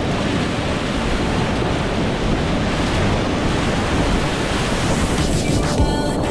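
Steady rush of a swollen, muddy whitewater river's rapids, picked up by the kayak's on-board camera as it paddles through big breaking waves. About five seconds in, a wave splashes over the camera and the hiss briefly dulls.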